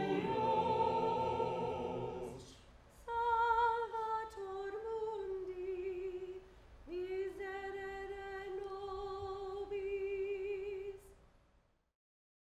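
Unaccompanied singing as background music. At first several voices hold a chord; after a short gap, one voice sings long held notes with a wavering vibrato, then dies away near the end.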